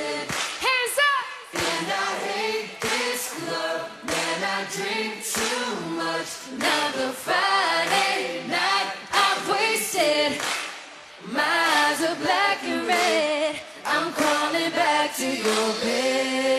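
Singing with wavering, drawn-out notes over music in a live pop/R&B concert performance.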